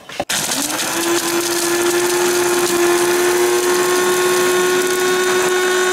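Electric blade grinder grinding lumps of charcoal. Its motor starts a moment in and rises within about a second to a steady whine, with the charcoal pieces rattling and being chopped inside the cup.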